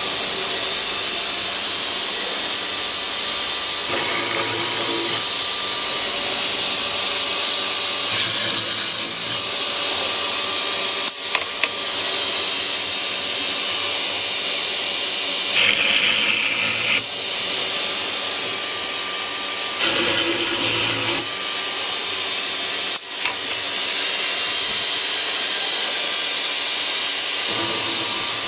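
CNC woodworking router with a multi-spindle boring unit running: a steady high spindle whine with noise from the dust extraction. The tone changes briefly several times as the bits cut, with a few sharp clicks.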